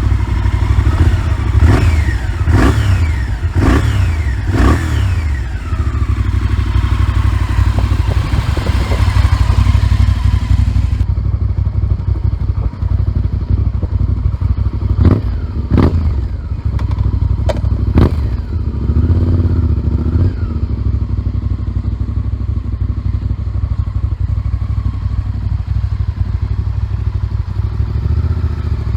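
Honda VTR1000 Firestorm's 90-degree V-twin with Remus slip-on exhausts, idling with a low, even beat and blipped on the throttle: four quick revs in the first five seconds, four sharper blips around the middle, then a smaller rev before it settles back to idle.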